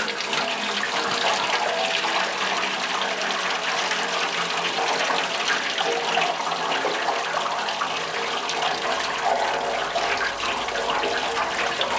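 Engine coolant running out of the radiator drain of a 1943 Willys MB jeep in a steady, unbroken stream.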